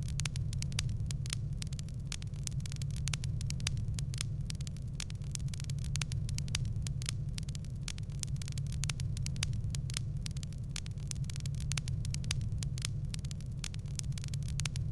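Wood fire crackling: many small irregular pops and snaps over a steady low rumble.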